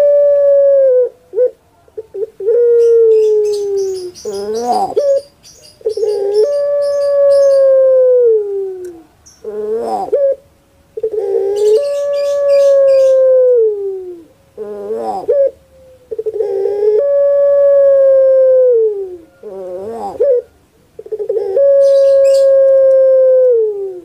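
Caged collared dove cooing over and over: long drawn-out coos that sag in pitch at the end, each followed by a short wavering note, the pattern repeating about every five seconds.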